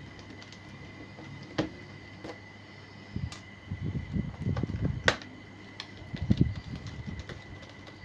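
Screwdriver and hands working out a laptop's bottom-case screws: a few sharp clicks, with bursts of low knocking and rubbing from about three seconds in and again near the end.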